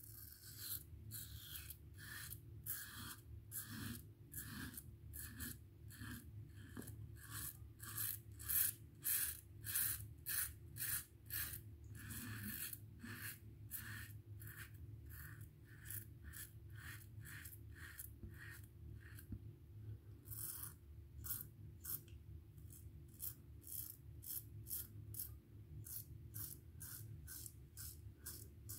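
Merkur Futur double-edge safety razor shaving lathered stubble: a run of short rasping strokes, about two a second, with a brief pause about two-thirds of the way through.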